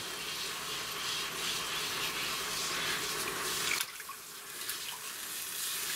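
Water sloshing and hissing in a hot cast-iron roaster as a silicone brush scrubs it clean straight after cooking. The noise drops quieter about four seconds in.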